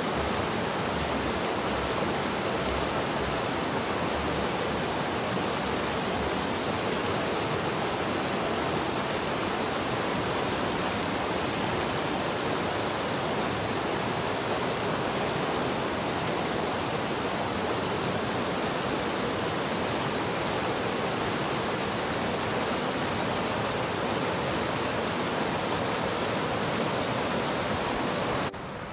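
Mountain stream rushing and splashing over granite boulders: a steady whitewater roar that drops away suddenly near the end.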